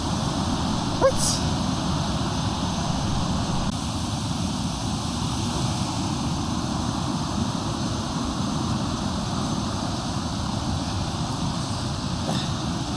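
Steady rushing roar of a waterfall, with a brief click about a second in.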